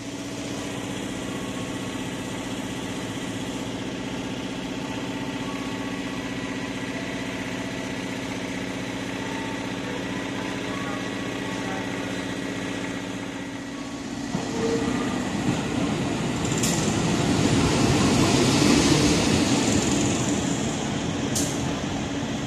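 Steady drone of an idling diesel train engine. About two-thirds of the way in, a louder rumble builds up as a KAI CC 201 diesel locomotive rolls in along the platform track while shunting, with two sharp metallic clanks.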